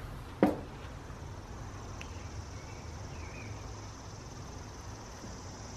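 Steady high-pitched drone of insects over a low hum, with one sharp click about half a second in and a faint short chirp near three seconds.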